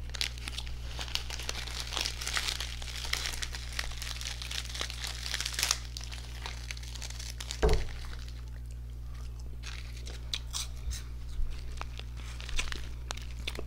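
Plastic candy wrappers crinkling and tearing as individually wrapped candies are opened, the rustling busiest in the first half, with a single thump about eight seconds in.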